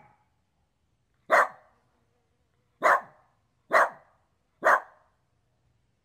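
Dog barking: four single short barks, each a separate bark about a second or a second and a half after the last.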